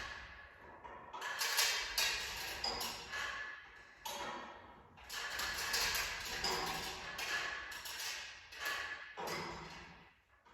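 Irregular handling noise: bursts of rustling and scraping, each a second or two long, with knocks and taps mixed in.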